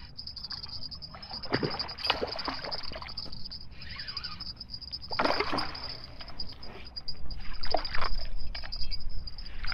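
Water splashing and sloshing in several irregular bursts as a hooked fish thrashes at the surface while it is drawn to the bank and netted.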